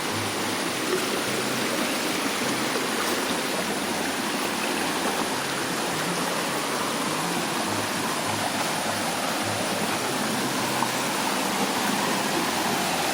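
A small forest stream and waterfall: a steady, even rush of running water.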